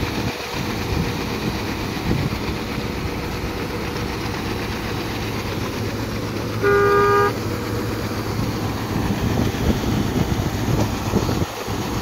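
Combine harvester engine running steadily. A vehicle horn sounds once, briefly, about halfway through.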